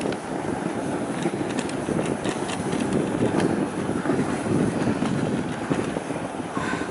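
Dog sled running over packed snow: a steady scraping hiss of the runners and the team's movement, with wind buffeting the microphone.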